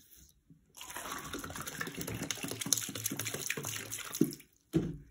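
Water poured from a plastic gallon jug into a small paper cup: a splashing stream starting about a second in and running for about three and a half seconds, followed by a single thump near the end.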